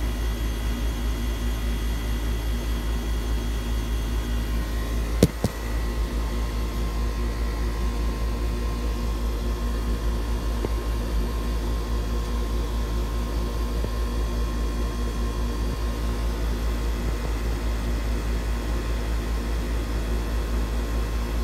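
Steady machine hum and whir with a strong low rumble and a few faint steady tones, broken by a single sharp click about five seconds in.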